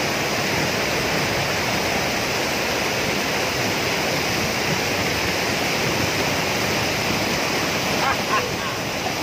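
Waterfall rushing steadily: a loud, even wash of falling water close by.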